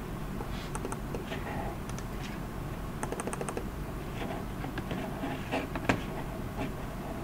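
Scattered clicks of a computer keyboard and mouse, with a quick run of clicks about three seconds in and a sharper single click near six seconds, over a steady low background hiss.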